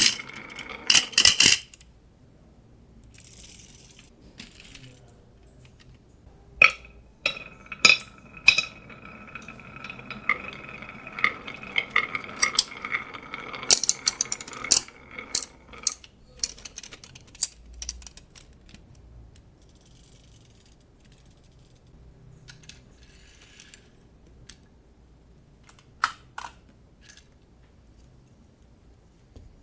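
Marbles clicking and clattering down a wooden marble run, with a steady ringing hum while they roll. There are sharp clacks about a second in, a dense run of clicks in the middle, and a couple more clacks near the end.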